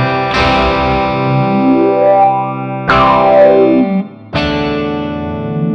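Electric guitar played through a Mooer GE 200 multi-effects amp simulation: three strummed chords, each left to ring, with a sweeping modulation effect and reverb on the sound.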